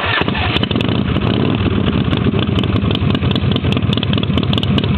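Custom chopper motorcycle engine running steadily and loud, with a rapid, even beat of firing pulses.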